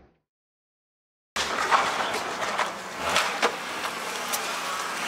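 About a second of silence, then a smashed-up, windowless hatchback driving past: a steady rush of engine and tyre noise with a few sharp rattles and knocks.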